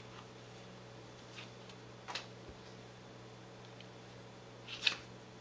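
Playing cards handled by gloved hands: a few soft clicks and brushes as cards are slid off the deck, the sharpest near the end, over a faint steady hum.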